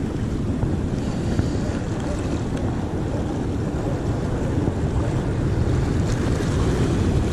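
Wind buffeting the microphone over steady sea surf breaking on the shore, growing a little louder about six seconds in.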